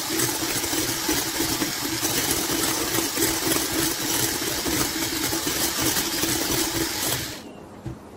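Electric hand mixer running steadily, its beaters whipping a thick cream mixture in a glass bowl. The motor cuts off about seven seconds in.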